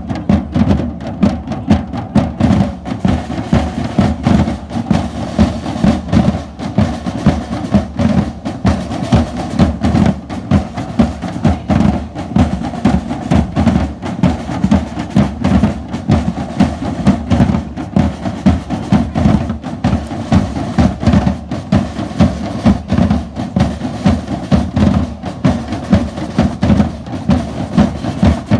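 Live drum band playing a steady, driving rhythm, with loud regular drum strokes about twice a second.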